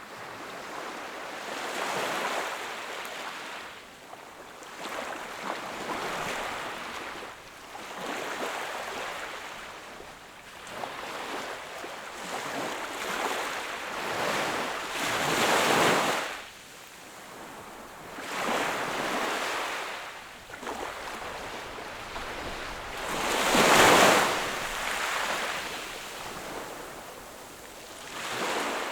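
Sea waves breaking and washing up the shore, one surge after another every few seconds. The biggest wash comes about halfway through, and a louder one near the end.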